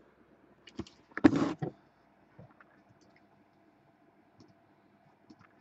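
Clicks of a computer keyboard and mouse, with a short, loud scuffing burst about a second in.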